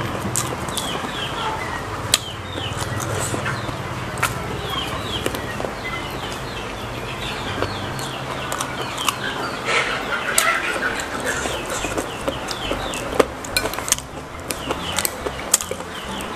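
Chopsticks clicking against a plate while noodles are eaten close to a lapel microphone, over chickens clucking in the background throughout.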